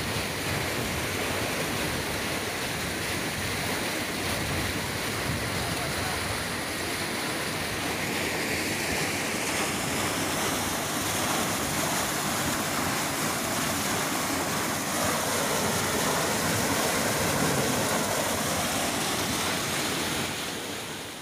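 Steady rush of water pouring over a small concrete weir in a canal.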